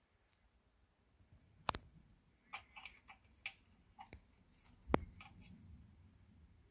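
Kit parts and packaging being handled: a scatter of small clicks and taps, with two sharp knocks, one about two seconds in and one about five seconds in.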